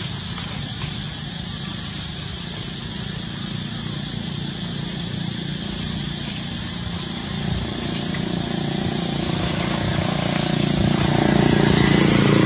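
An engine running steadily, growing louder over the last few seconds.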